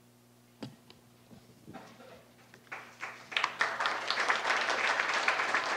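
Audience applauding. It starts with a few scattered claps about two seconds in and builds to full, steady applause from about three seconds in.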